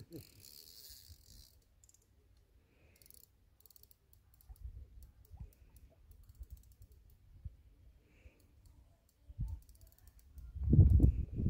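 Spinning fishing reel clicking in quick runs as a hooked carp is played and reeled toward the landing net. A low rumble near the end is the loudest sound.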